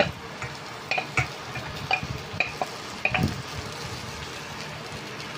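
A ceramic bowl knocking against a stainless steel pan as cooked rice is tipped and tapped out of it: a run of light knocks, about two a second, for the first three seconds. Underneath, food frying in the pan makes a steady sizzle.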